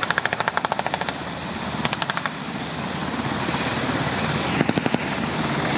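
Helicopters running overhead, their noise swelling through the middle, with short bursts of rapid automatic gunfire: a burst at the start, another about two seconds in and a brief one near the end.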